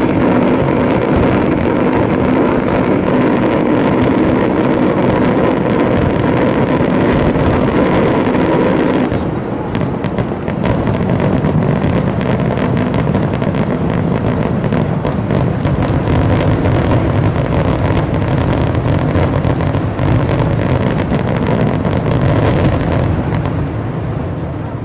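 Closing barrage of a Pirotecnia Peñarroja aerial fireworks display: shell bursts and crackling reports come so fast they run together into a continuous rumble. The sound shifts slightly about nine seconds in and eases off near the end.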